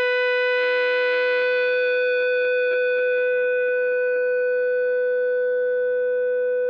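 Epiphone ES-339 electric guitar through a Rat and a Soul Food drive pedal, one high note held on by the fuzz and sustaining steadily without fading. Fainter lower notes ring under it from about half a second in.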